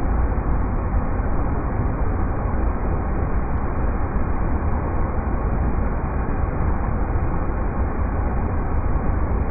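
River rapids rushing steadily, a dense even wash of water noise heaviest in the deep low end.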